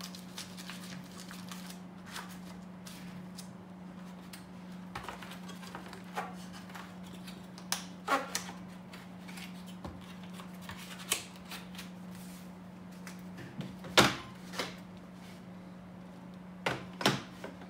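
Wooden cigar boxes being handled: cedar sheets and paper rustling, and lids and boxes clicking and knocking in scattered taps. The sharpest knock comes about three quarters of the way through. A steady low hum runs underneath.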